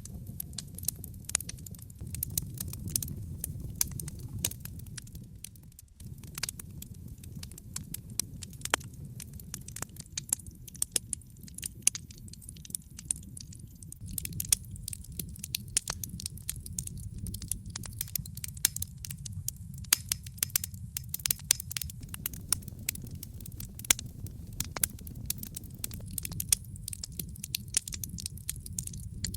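Wood fire crackling, with frequent sharp pops and snaps over a low steady rumble of flame. The rumble dips for a moment about six seconds in.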